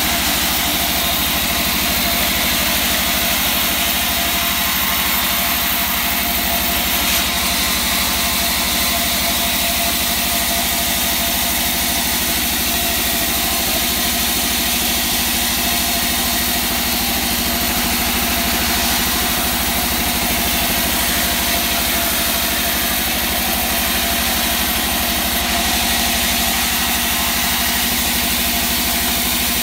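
Large vertical band saw running steadily as a hard wangkal wood beam is fed through it and sawn into planks.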